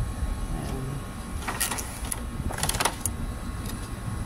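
Clear plastic packaging crinkling and crackling as it is handled, in short bursts about a second and a half and two and a half seconds in, over a steady low rumble.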